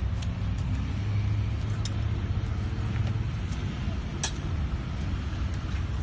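Low rumble of traffic on the adjacent road, swelling as a vehicle passes a second or two in, with a few sharp clicks and scrapes of hand tools working the soil.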